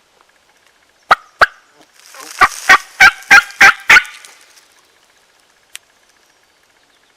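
Hand-worked turkey call sounding hen yelps close by: two loud notes about a second in, then a run of six evenly spaced yelps at about three a second.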